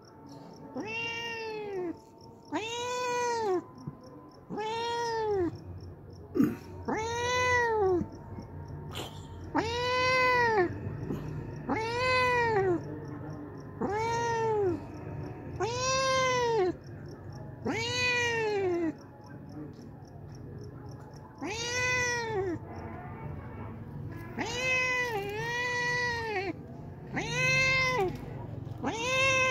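Hungry stray cat meowing over and over, asking for food: over a dozen long meows about every two seconds, each rising and then falling in pitch, with one short pause about two-thirds of the way through.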